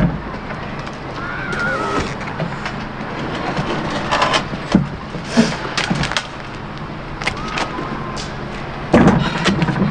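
Knocks, bumps and scrapes of a large cupboard being manoeuvred and set down, irregular over a steady background noise, with a louder cluster of bumps near the end.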